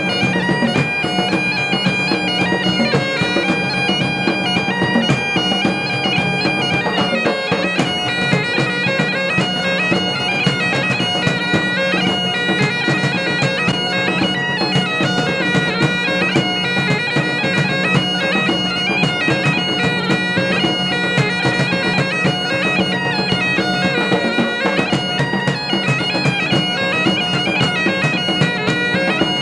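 Bagpipes playing a tune over their steady drones, with drums beating throughout in a tribal pipes-and-drums performance.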